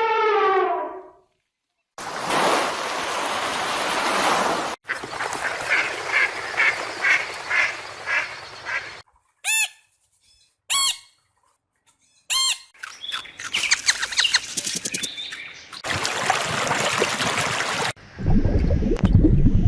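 A string of short, unrelated animal-call recordings joined by abrupt cuts and brief silences. It opens with a wavering pitched call, then comes a noisy stretch with a call pulsing about twice a second, two short chirps, and more calls; the mix includes goose- or duck-like honking.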